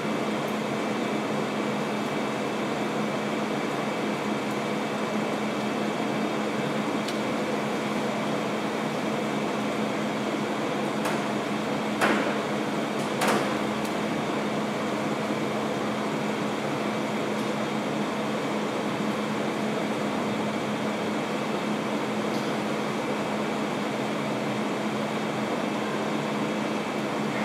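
Steady hum of air conditioning and cooling fans, with a constant low tone. Two short, sharp sounds about a second apart come roughly twelve seconds in.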